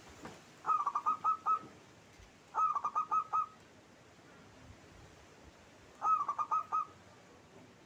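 Zebra dove (perkutut) singing: three short phrases of quick, clipped cooing notes, about six notes to a phrase. The first two come close together and the third follows after a longer pause.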